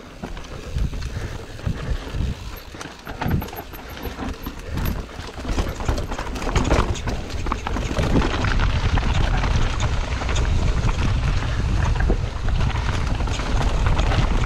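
Mountain bike ridden on a dirt trail, heard from a camera on the rider: irregular rattles and clicks from the bike at first, then a steady loud rush of wind over the microphone from about halfway as speed picks up.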